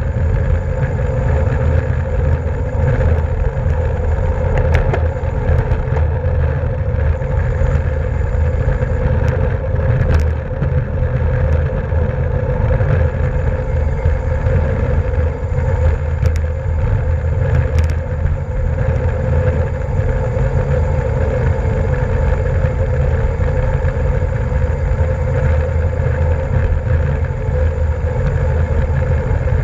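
Steady rush of wind over the microphone of a camera riding on a racing bicycle at speed, with a few faint clicks.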